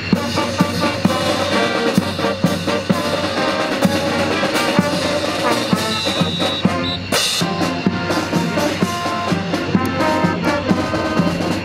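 Military marching band playing: brass and saxophones over snare and bass drums, with a steady marching beat.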